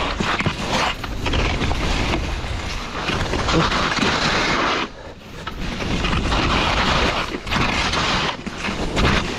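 Wind buffeting a skier's camera microphone during a fast downhill run, mixed with skis hissing and scraping over the snow, the rush swelling and easing as he turns.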